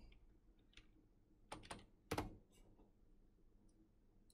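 A few faint clicks of a computer keyboard and mouse, the loudest coming about one and a half to two seconds in.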